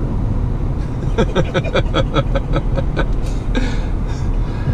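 Steady road and engine rumble of a car at highway speed, heard from inside the cabin. Between about one and three seconds in, a quick run of short pitched pulses rises over it.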